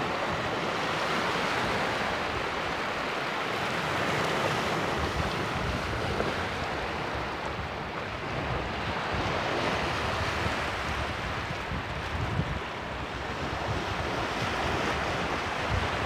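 Small surf breaking and washing up over a flat sandy beach: a steady hiss of foaming water that swells and eases, with wind buffeting the microphone in low rumbles.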